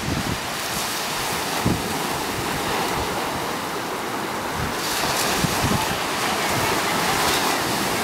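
Steady wash of sea surf, swelling about five seconds in, with occasional wind buffeting the microphone.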